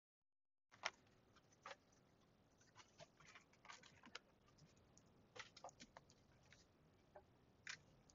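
Faint handling noise from a wallet and cards: scattered small clicks and rustles, the first about a second in.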